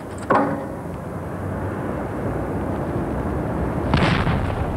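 A steady low rumble, with a short knock about a third of a second in and a sharp bang about four seconds in: a homemade capped-pipe bomb going off.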